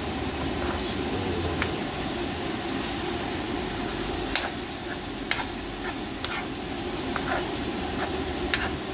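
Minced meat frying in two pans, a steady hiss, with a few sharp clicks of metal spoon and fork against the pans as the meat is stirred.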